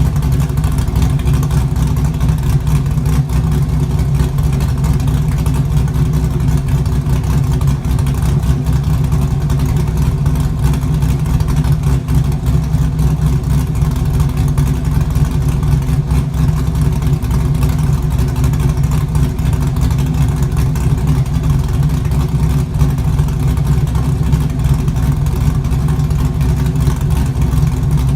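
LS1 5.7-litre V8 in a Mazda RX-7 idling steadily through an exhaust with no rear mufflers, a deep, even rumble.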